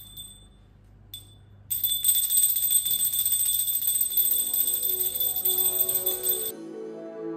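Puja hand bell (ghanta) struck twice, then rung rapidly and steadily for about five seconds before it stops suddenly. Background music with plucked notes comes in about halfway through.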